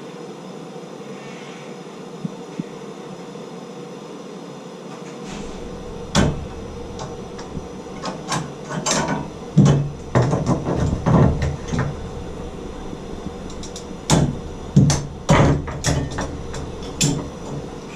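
Irregular knocks and clatters of hands-on plumbing work, coming in quick clusters from about six seconds in, over a steady hiss.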